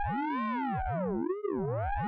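Synthesized radar pulse-train sound effect made with the Orange Vocoder plugin: a looping electronic tone of several voices whose pitches sweep up and down in arcs, the pattern repeating about every two seconds at a steady level.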